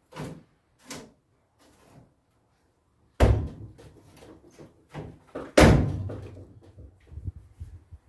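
Two loud metal bangs with a short ringing tail, about two and a half seconds apart, among lighter clicks and knocks: metal door hardware being handled and fitted on a VW single cab truck's door.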